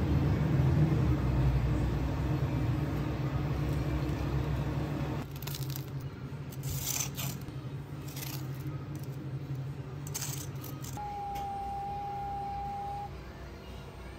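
A low, steady motor hum cuts off about five seconds in. Several light clinks follow, like utensils or metal parts, and then a steady electronic beep lasting about two seconds.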